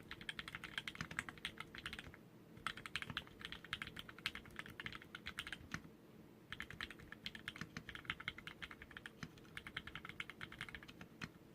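Typing on a custom mechanical keyboard with Cherry MX Black linear switches on 57g springs and an aluminum plate: fast runs of keystrokes, with short pauses about two seconds and six seconds in.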